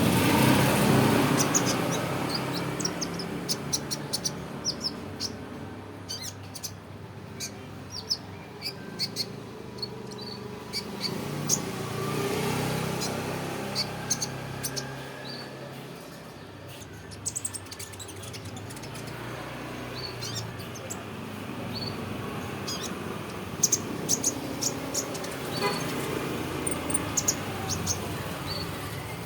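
A young songbird chirping and twittering in short, scattered high notes as it learns its song. Under it runs a background rumble of passing traffic that swells and fades a few times.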